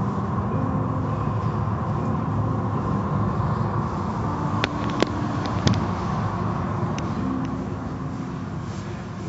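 Automatic car wash machinery running, its blue cloth strips spinning under the overhead frame: a steady mechanical rumble. A few sharp clicks come about five seconds in, and the sound drops a little near the end.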